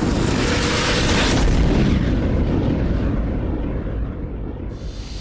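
Loud engine noise of a low-passing aircraft, a dense rumbling rush with a strong low end that fades away over the last couple of seconds.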